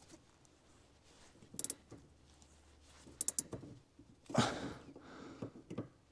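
Scattered clicks and knocks of hand tools against suspension hardware while a nut is fitted and tightened on a car's rear suspension. There is a quick run of clicks about three seconds in, and the loudest knock comes a little after four seconds.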